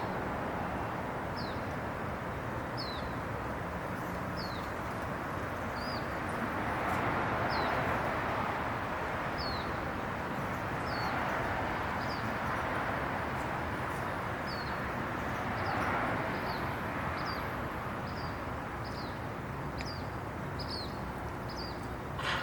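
A bird repeating a short, high chirp, at first about once every second and a half and then faster. Under it runs a steady outdoor background noise that swells three times, with one sharp click near the end.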